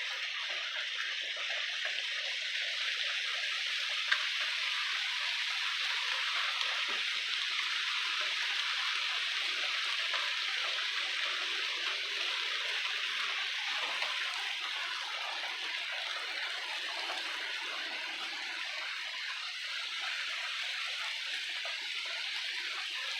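Heavy rain pouring down, a steady even hiss of falling water.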